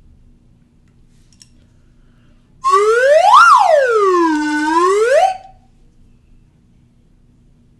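Slide whistle playing one gliding phrase of about three seconds: a quick swoop up to a high peak, a long slide down into a low dip, and a rise again before it stops.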